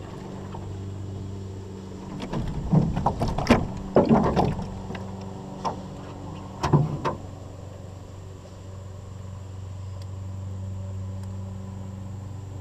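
Knocks and clatters in an aluminum jon boat as a landed bass and fishing gear are handled: a cluster between about two and four and a half seconds in and another around six to seven seconds, over a steady low hum.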